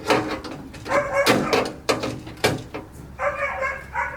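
A dog barking several times in short, pitched barks.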